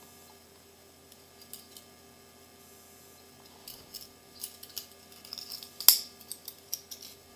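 Cold Steel Kudu folding knife being handled: a scatter of small clicks and ticks of metal and plastic, thickening in the second half, with one sharp click a little before the end, over a steady mains hum.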